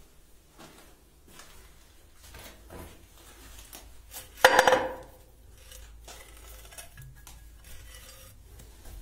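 A single loud metallic clang with a brief ring, about halfway through, as the rusted steel shutter plate of a concrete bunker's firing embrasure is moved by hand. Faint scraping and handling sounds come before and after it.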